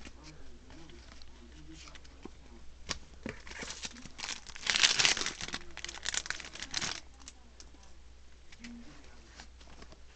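Crisp crinkling and rustling as Yu-Gi-Oh! trading cards are handled and flipped through. A dense run of rustles comes from about three to seven seconds in, loudest around the middle.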